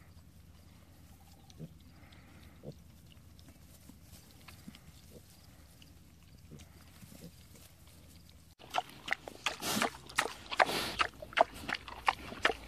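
Pig snuffling and chewing close up while rooting in dirt: a loud, irregular run of sharp crunching clicks, about three or four a second, that starts suddenly about two-thirds of the way in, after several seconds of faint scattered ticks.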